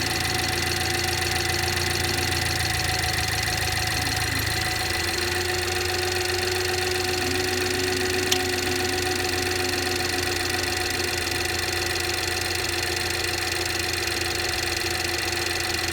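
BMW B48 turbocharged four-cylinder engine idling after a cold start, with steady whining tones over the engine note, which the owner counts as extraneous noises. The idle note shifts about five seconds in, and a single sharp click sounds about eight seconds in.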